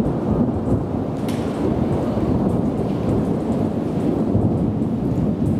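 Steady rain: a loud, even low rumble of noise that does not let up.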